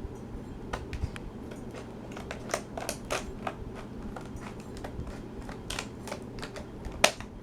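Stiff plastic clamshell packaging being worked open by hand, giving irregular clicks and crackles with one sharper crack near the end.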